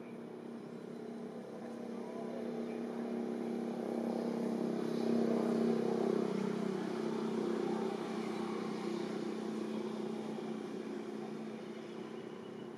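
Engine of a passing motor vehicle, a steady hum that grows louder to its peak about halfway through and then fades away.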